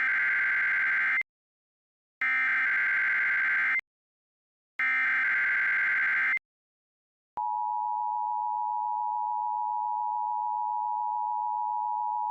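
Emergency alert SAME header: three harsh digital data bursts, each about a second and a half long and a second apart. About seven seconds in, a single steady warning alarm tone begins and holds.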